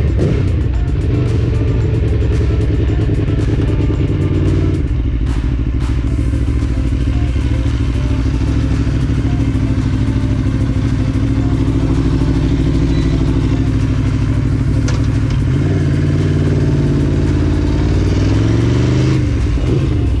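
Aprilia Tuono V4 Factory's V4 engine running on the move, its pitch falling at the start, holding steady through the middle, then rising for a few seconds and dropping again near the end.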